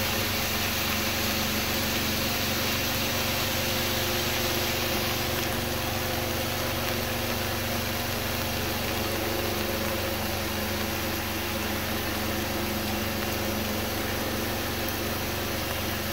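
A steady mechanical hum with an even hiss over it, unchanging throughout.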